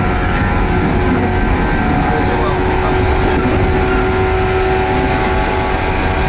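Train running at speed, heard from inside the passenger car: a loud, steady rumble of wheels and running noise with a few steady humming tones over it.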